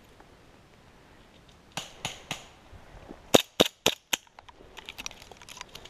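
Gas blowback airsoft pistol, a KJ Works Beretta M9 replica, firing: three shots about two seconds in, then four louder shots in quick succession about a second later.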